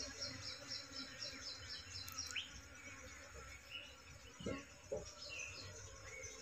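Faint outdoor ambience: a rhythmic high insect trill in the first couple of seconds, with a few short bird chirps scattered through and two soft knocks about two-thirds of the way in.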